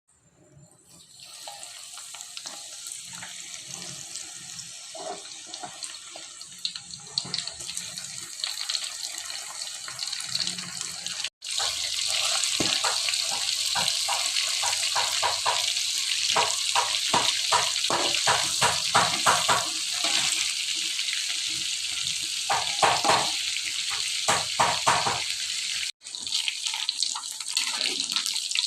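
Small fish frying in hot oil, with a steady sizzle full of crackles and pops. It fades in at the start, is louder after a sudden break about 11 seconds in, and breaks off again briefly near the end.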